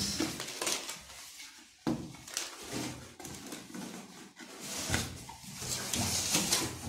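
Knife cutting through box packaging, with irregular scraping and rustling of cardboard and plastic and a couple of sharp knocks as the package is handled.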